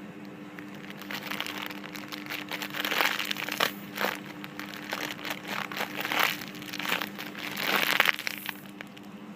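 Crinkling and rustling as a homemade squishy is squeezed and handled, in irregular bursts until near the end.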